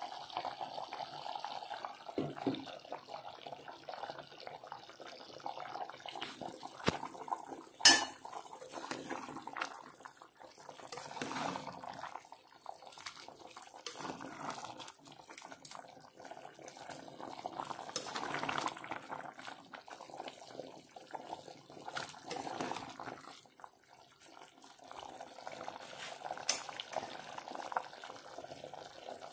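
Thick gravy bubbling in an aluminium pot while a metal ladle stirs it, clinking and scraping against the pot at irregular moments. One sharp metal clank about eight seconds in is the loudest sound.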